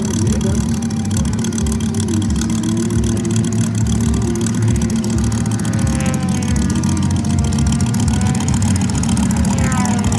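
Moki radial model aircraft engine running steadily at a constant speed.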